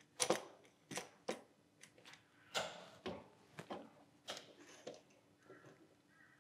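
Sharp metal clicks and knocks of locking C-clamps being adjusted and set on stainless steel sheet and bench, about eight separate knocks with short gaps between them.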